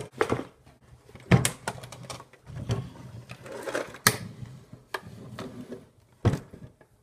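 Handling noise: about four sharp knocks and clatters, with rustling between them, as things are moved about on a wooden table.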